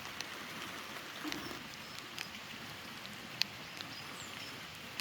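Light rain falling, an even hiss with scattered drops ticking on surfaces.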